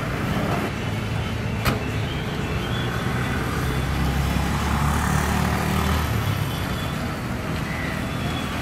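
Steady engine noise from aircraft and ground vehicles, with a deeper rumble swelling in the middle and a single sharp click just under two seconds in.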